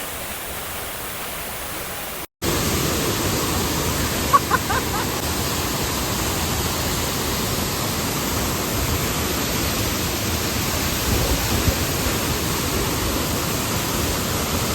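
Waterfall rushing steadily. It cuts out briefly about two seconds in and comes back louder.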